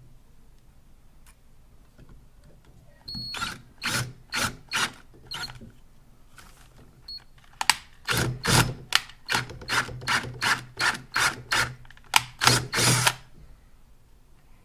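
Cordless drill boring out a hole in the metal base of a hydraulic bottle jack to make it bigger, run in short trigger bursts: a few bursts, a pause, then a quicker string of about a dozen, two or three a second.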